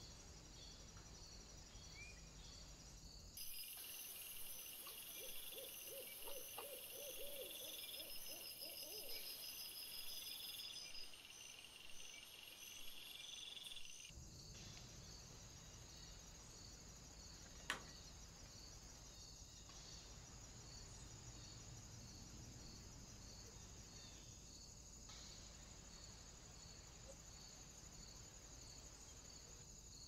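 Faint woodland ambience from a trail camera's microphone: steady hiss, with high, continuous insect chirring through the middle stretch and a brief run of low, rapid notes within it. A single sharp click comes later.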